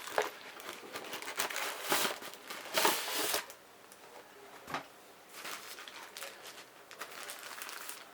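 Plastic packaging crinkling and tearing in short, irregular bursts as a propeller guard is unwrapped by hand, loudest around three seconds in.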